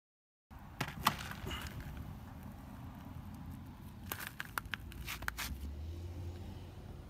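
Half a second of silence, then a low outdoor rumble with a few sharp clicks and crackles, bunched about a second in and again around four to five seconds in.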